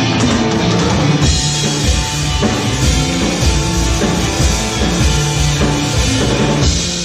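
A psychedelic rock band playing, with a full drum kit keeping a steady beat under the other instruments.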